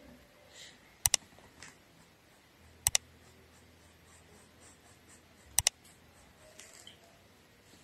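Three computer-mouse double clicks, about one, three and five and a half seconds in: the click sound effect of an on-screen subscribe-button animation. Faint paintbrush strokes on fabric can be heard between them.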